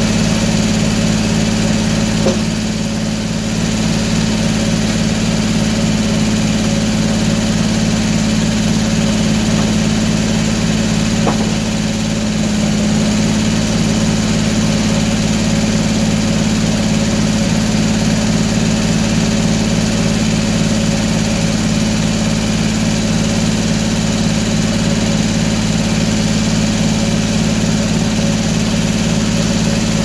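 Circular sawmill running: the engine that drives it holds a steady hum while the large head saw blade spins.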